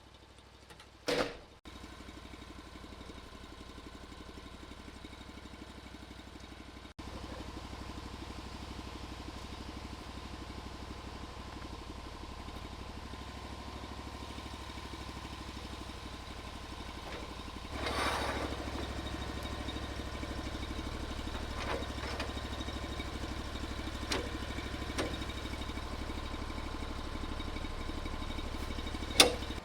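Woodland Mills HM136MAX portable bandsaw mill's gasoline engine running steadily, stepping up in level about seven seconds in and again a little after halfway. A brief knock about a second in and a sharp click near the end are the loudest moments.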